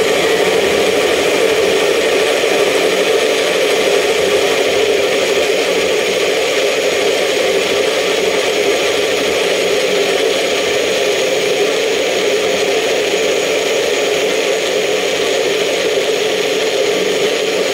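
Bullet-style personal blender running steadily at full speed, its blades churning a thick beet and vegetable mix in the upturned cup. It is the second run, grinding chunks that were still too large into a fine purée.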